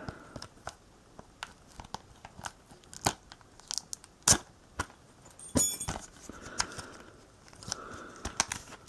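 Plastic shrink-wrap being cut and peeled off a disc case: scattered crinkles, clicks and sharp snaps, one with a brief ringing ping about five and a half seconds in.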